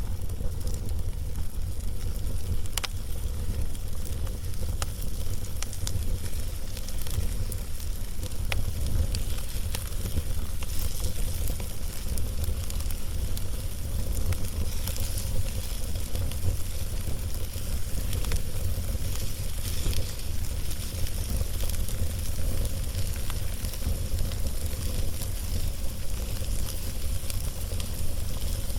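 Log fire burning with fine crackling and scattered sharp pops, over a steady low rumble.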